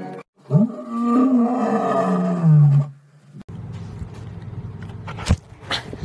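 A lion's roar laid over a house cat: one long, loud roar that rises and then falls in pitch and cuts off about three seconds in. It is followed by a quieter stretch with a few sharp knocks near the end.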